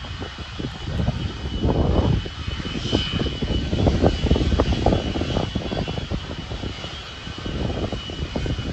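Jet airliner engines running, with heavy wind buffeting on the microphone and a faint steady high whine.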